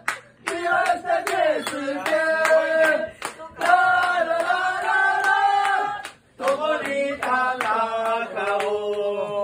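A small group of men singing a football supporters' chant on 'la la la' syllables, held on long notes, with sharp hand claps mixed in. The singing breaks off briefly a little after six seconds and then picks up again.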